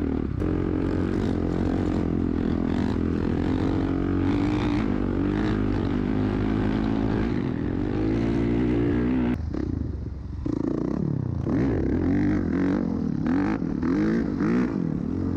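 Dirt bike engine running and revving, its pitch rising and falling repeatedly, with a sudden change in the sound about nine seconds in.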